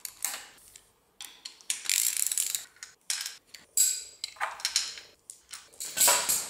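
Hand socket ratchet clicking in a series of short runs, strokes about a second apart, while undoing the intake manifold bolts on a small-block Chevy V8.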